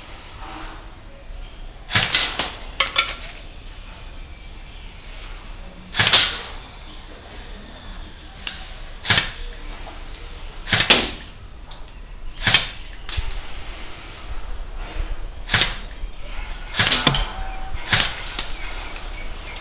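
A DBOY BY-805T SCAR-H electric airsoft rifle firing about ten single shots, each a sharp crack, spaced irregularly one to three seconds apart, at targets standing on a stump.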